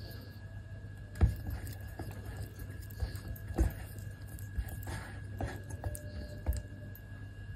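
Whisk stirring a thick, creamy mixture in a stainless steel bowl: wet squelching with irregular knocks of the whisk against the bowl, the loudest about a second in and again past the middle. A steady low hum runs underneath.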